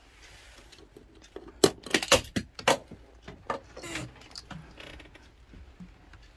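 A quick flurry of sharp clicks, knocks and light rattles, densest about one and a half to three seconds in, then thinning out to a few scattered clicks.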